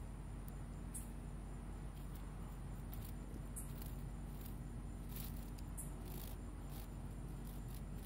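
Steady high-pitched chirring of night insects, with brief scratchy bursts at irregular intervals.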